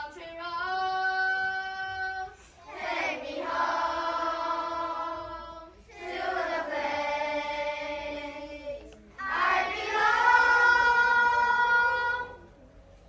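A group of children singing together in unison: four long held notes, each two to three seconds, with short breaks between them.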